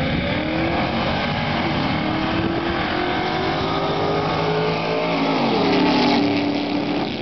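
Two drag-racing cars, a 1969 Ford Mustang coupe and a second car, accelerating hard down the strip, their engines rising in pitch. They pass close by about six seconds in, where it is loudest, and the pitch drops as they go by.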